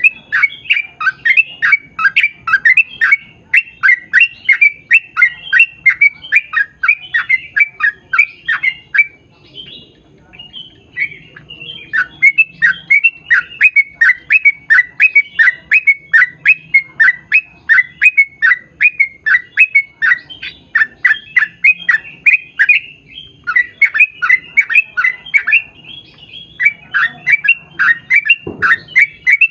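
Yellow-vented bulbul (trucukan) singing long rapid runs of short, downward-sweeping chattering notes, several a second. The runs break off briefly about a third of the way in and again near the end.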